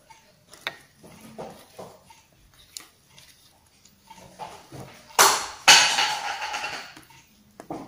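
Soft squishing and light clinks of hands mixing masala-coated yam slices in a steel bowl. About five seconds in come two loud noisy bursts, a short one and then a longer one that fades out.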